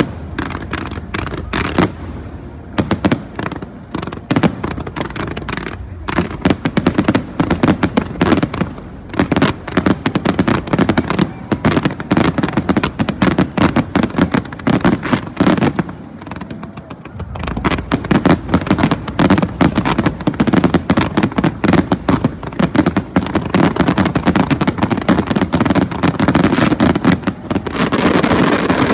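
Fireworks going off in rapid, dense volleys of bangs and crackling, like machine-gun fire, with a short lull a little over halfway through before the barrage resumes.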